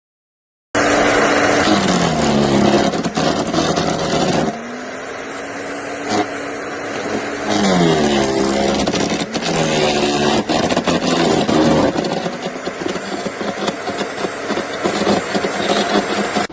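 Electric wood chipper motor starting suddenly about a second in, its pitch sagging and recovering several times as it comes under load from branches being fed, with sharp cracking clicks from the wood being chipped.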